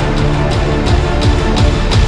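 Intro theme music with a steady, heavy drum beat.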